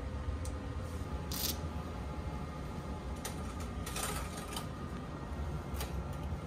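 Steady low rumble of the Sunrise Express sleeper train running, heard from inside a compartment. A few short clicks and rustles over it, the last near the end as a hand takes hold of the pleated curtain.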